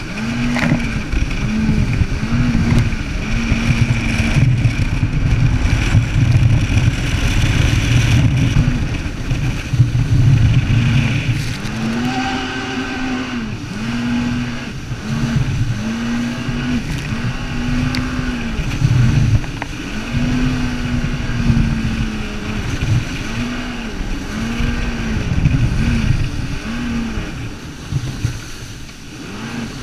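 Jet ski engine running at speed, its note rising and falling over and over, with rushing wind and water noise.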